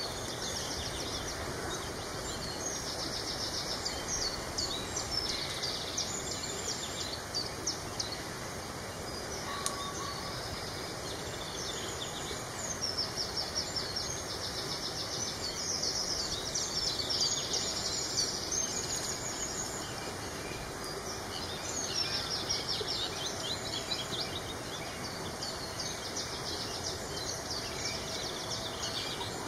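Several small songbirds singing and calling, with many short phrases and fast trills, over a steady outdoor background hiss.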